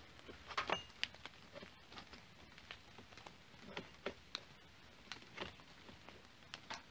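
Faint, irregular light clicks and taps of plastic and metal as a chainsaw's guide bar and side housing are handled and pushed onto the mounting stud.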